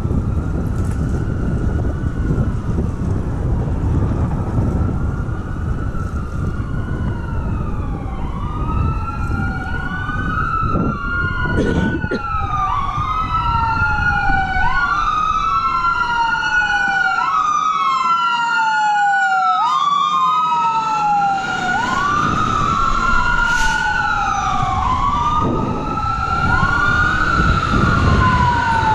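Fire truck siren wailing, its pitch sweeping up and down about every two seconds; from about eight seconds in, a second sweep runs out of step with the first. Wind rumble on the microphone sits underneath and fades for a few seconds in the middle.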